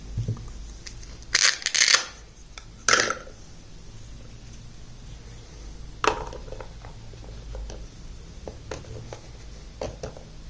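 Small plastic toy kitchen pieces and their packaging being handled: a few crinkling rustles about one and a half to three seconds in, a sharp click about six seconds in, then light taps and clicks.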